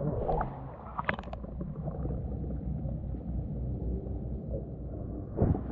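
Muffled, steady low rumble of water heard through a GoPro's waterproof housing underwater, with a few sharp clicks about a second in and a thump near the end.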